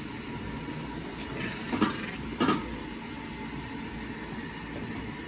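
Rottweiler and Staffordshire puppies play-fighting on a plastic slatted floor over a steady background hum, with two short sounds from the scuffle about two seconds in.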